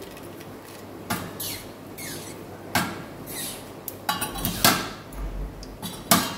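Mustard and cumin seeds spluttering in hot oil in a clay pot: irregular sharp pops over a faint steady sizzle, the sign that the oil is hot enough for the tempering.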